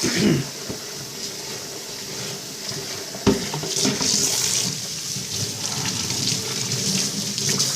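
Water running from a kitchen tap into a sink, with a single sharp knock about three seconds in.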